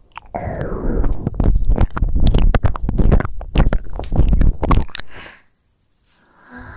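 Close-miked wet mouth sounds: rapid clicks and smacks. They stop for a moment about five and a half seconds in, and a soft breath follows near the end.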